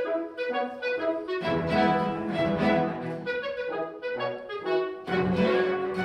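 Small chamber ensemble of violins, cello and French horn playing music with notes changing often.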